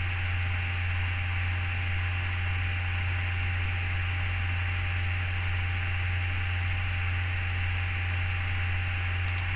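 Steady low electrical hum with hiss from the narrator's microphone, no voice. A faint pair of mouse clicks comes near the end.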